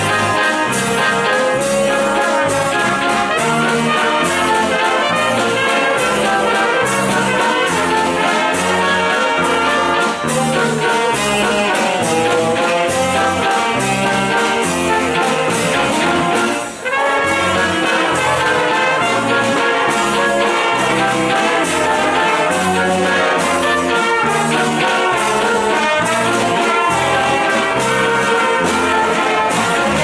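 Wind band playing live: saxophones, flute and brass over a drum kit and bass, with a steady bass line and beat. The music stops briefly just past halfway, then carries on.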